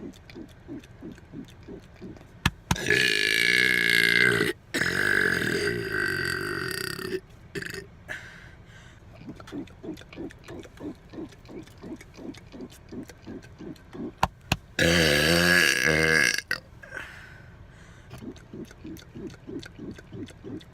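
A man burping: long, drawn-out belches, two in quick succession a few seconds in and a third about two-thirds of the way through, each just after a sharp click. A faint rhythmic ticking, about three a second, runs underneath.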